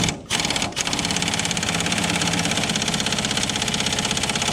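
Impact wrench hammering on a rusted, seized shock bolt, trying to spin it loose: a few short bursts, then one long continuous run of rapid blows.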